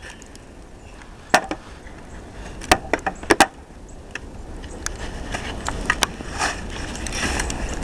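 Snow shovel at work: a few sharp knocks of the blade, about a second and a half and three seconds in, then a growing scraping rush near the end.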